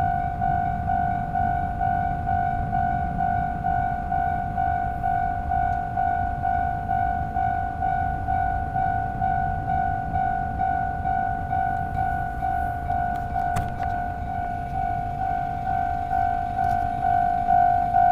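Japanese railway level-crossing warning bell ringing, a steady electronic ding-ding at about two strokes a second, over a low rumble.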